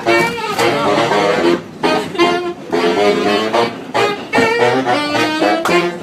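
Saxophones playing jazz together in a quick run of short notes, inside a subway car.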